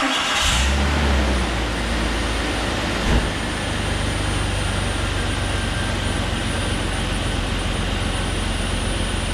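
2001 Jeep Cherokee XJ's 4.0 L inline-six running at idle, a little faster for the first second or so and then steady, with a steady rush of air over the engine sound from a vacuum leak. A short knock sounds about three seconds in.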